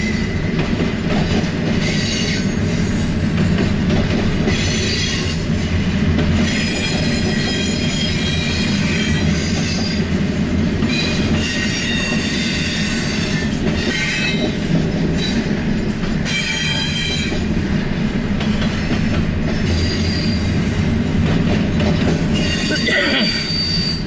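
Pan Am Railways freight train 23K's intermodal cars rolling past: a steady low rumble of steel wheels on the rails, with high-pitched wheel squeal coming and going every second or two.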